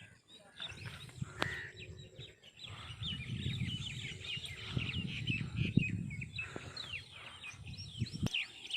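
Many small birds chirping busily, short rapid calls over and over, with a low rumbling noise underneath for a few seconds in the middle and a couple of sharp clicks.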